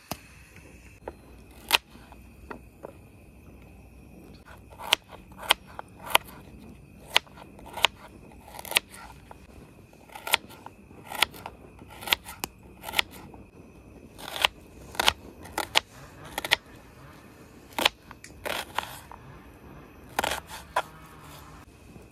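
A string of sharp, short clicks and snaps at an irregular pace, about one or two a second.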